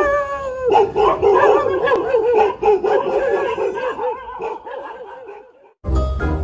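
A dog howling and yelping, one continuous cry that wobbles rapidly up and down in pitch and fades out about four to five seconds in. Music starts abruptly near the end.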